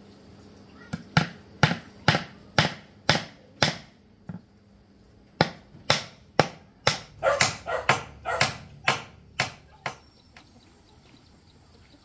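A dog barking in two runs of short, sharp barks, about two a second, with a brief pause between.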